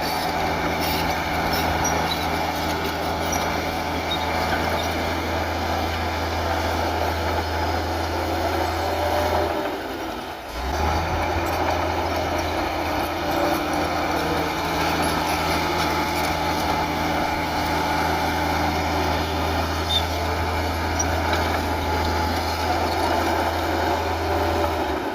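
Bulldozer's diesel engine running steadily under work, with faint slowly rising and falling whines over it. The sound drops away briefly about ten seconds in and again near the end.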